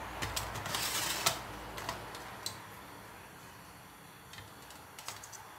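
Scattered light clicks and clinks of stainless-steel kitchen tongs against a metal colander and a plate as fried fish is served, with a short rustle about a second in.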